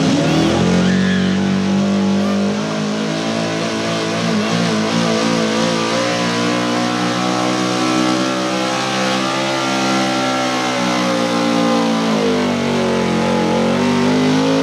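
Chevrolet pickup's small-block V8 pulling a sled at full throttle. The revs climb steeply in the first second and then hold high and steady under heavy load. About twelve seconds in they sag slightly, then climb again near the end.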